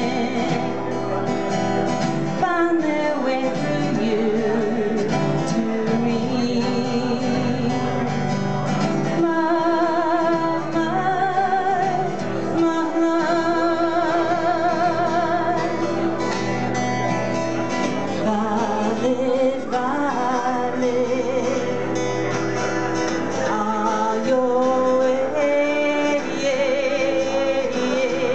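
A song performed live: an acoustic guitar played under a solo singing voice, the held notes sung with a marked vibrato.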